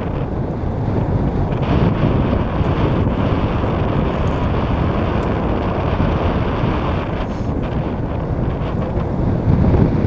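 Wind blowing across the microphone: a loud, steady rush of noise with a deep rumble, swelling a little near the end.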